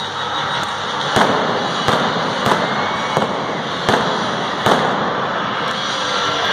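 Arena pyrotechnics: a series of about eight sharp fireworks bangs, roughly one every two-thirds of a second, over a steady hiss.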